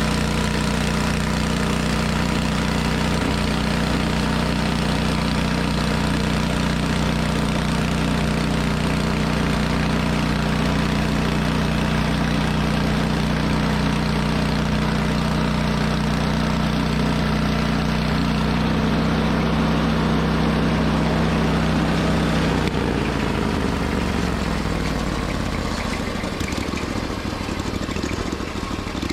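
An engine running at a steady speed. About 23 seconds in, its pitch falls as it slows down to a lower, rougher running speed.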